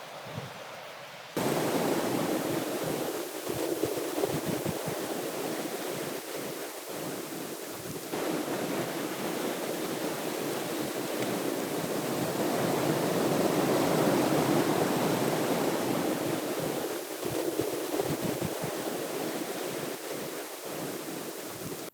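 Strong blizzard wind blowing and buffeting the microphone, a steady rushing noise. It jumps louder about a second in and again about a third of the way through.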